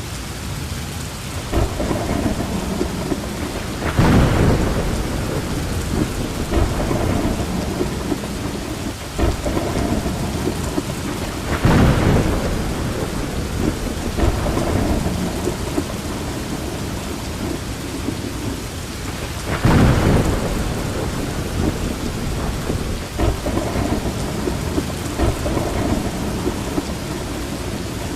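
Steady heavy rain falling, with thunder rumbling through it; three louder claps of thunder stand out, about eight seconds apart.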